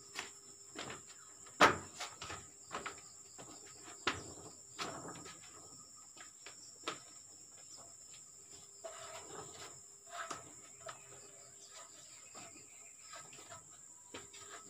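Insects keep up a steady high-pitched drone, with scattered knocks and clacks on top, the sharpest about one and a half seconds in. Near the end a man climbs an aluminium extension ladder, and its rungs knock and rattle under him.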